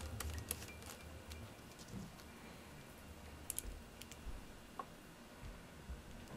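Faint, scattered light clicks and taps of a small screwdriver and screws against the metal display frame of a Dell Inspiron 6000 laptop as the screen's screws are set in place.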